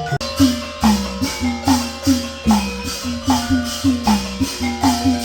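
Live traditional Mon (Burmese) ensemble music accompanying a dance, with a steady percussion beat of about two and a half strikes a second under sustained melodic tones.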